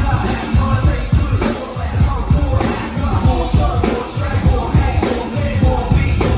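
Live band playing hip-hop with a heavy drum beat, bass and keys, and some vocals over the top.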